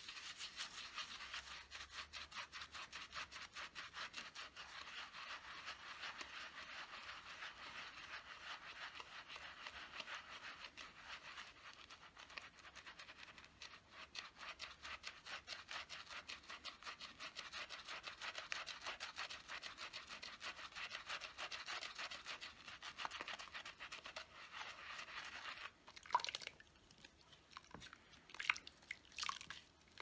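Makeup brush bristles scrubbed quickly back and forth over a wet silicone brush-cleaning pad, a fast steady brushing rasp. About 26 seconds in the scrubbing stops and gives way to a few splashes and drips as the brush is worked in the tub of soapy water.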